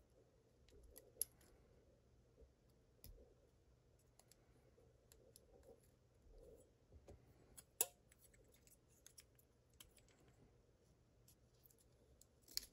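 Near silence broken by sparse, faint small metal clicks and light scrapes from a padlock's core being shimmed and worked loose, with a sharper click about a second in and the loudest click about eight seconds in.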